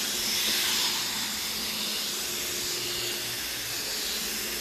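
High-pressure washer lance spraying a jet of water onto a Nami Burn-E electric scooter: a steady hiss of spray, with a faint steady hum underneath.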